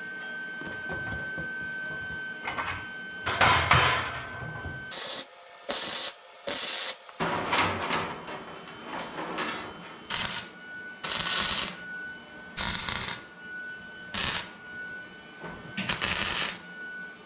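Workshop noise: about ten short, harsh mechanical bursts at irregular intervals, over a faint steady whine.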